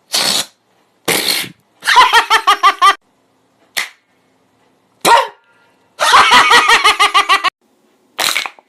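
Vocal sound effects made with the mouth: short hissing, spitting bursts and two rapid runs of staccato pitched syllables, about eight a second.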